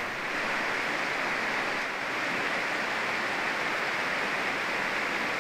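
Fast, bouldery river water flowing steadily.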